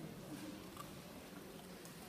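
Faint murmur of distant voices over low background noise in a large hall.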